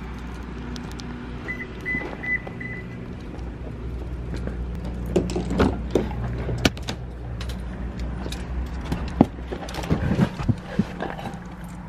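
Steady low rumble, four short high beeps about two seconds in, then a run of clicks and knocks as a car door is opened by its handle and someone climbs into the driver's seat.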